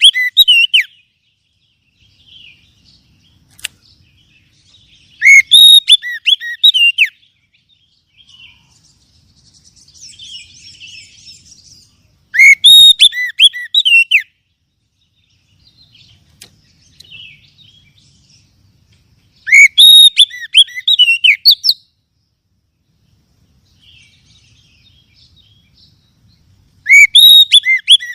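Oriental magpie-robin (kacer) singing: loud two-second phrases of rapid whistled notes with falling glides, about every seven seconds, four times, with faint twittering in between. It is a song recording played as a lure to set a caged kacer singing.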